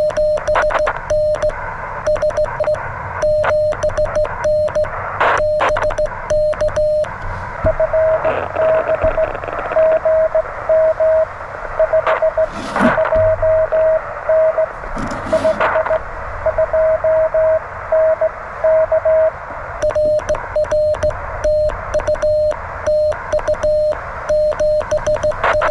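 Morse code on the 40 m band from a (tr)uSDX QRP transceiver: a tone of about 600 Hz keyed in dots and dashes over receiver hiss. The operator sends on a straight key, then a second station's reply comes in through the hiss in the middle. The operator sends again near the end. There are two short bursts of noise during the reply.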